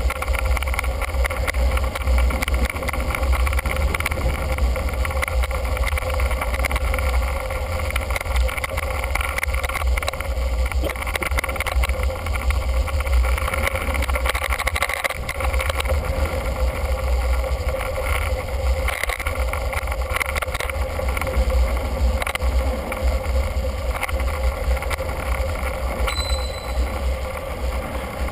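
Wind buffeting the microphone of a camera mounted on a moving bicycle, heard as a steady rushing noise with a heavy low rumble. A brief high tone sounds near the end.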